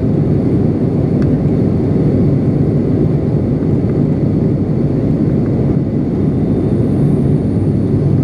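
Steady in-flight drone of an ATR 72-600's turboprop engines and propellers, heard inside the passenger cabin: an unchanging low roar with a steady low propeller hum.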